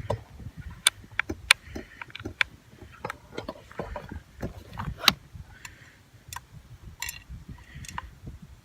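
Scattered sharp clicks and knocks at irregular intervals, the loudest about five seconds in, over a faint low rumble.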